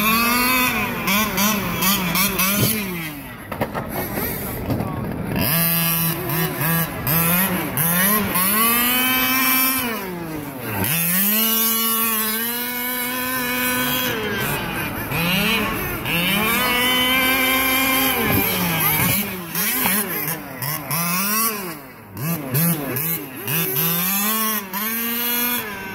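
Radio-controlled buggy's motor revving up and easing off again and again as the car drives around, its pitch climbing, holding high and dropping in repeated runs.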